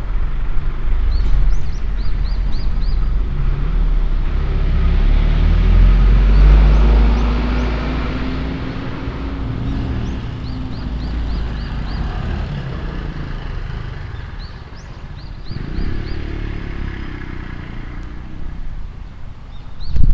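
A vehicle passing on a road, its engine sound swelling to a peak about six to seven seconds in and then fading away, over a steady low rumble. Short high chirps come in quick runs of three to five several times.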